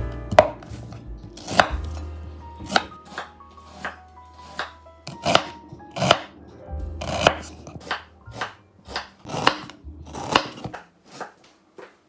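Chef's knife slicing a white onion on a wooden cutting board: a run of sharp chops, about one to two a second, each blade stroke knocking on the board, stopping shortly before the end.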